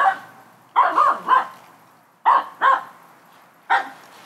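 Finnish Spitz barking at a squirrel up in the trees, the breed's bark-pointing at treed game. About seven short barks come in quick groups: one at the start, three around a second in, a pair halfway through and a last one near the end.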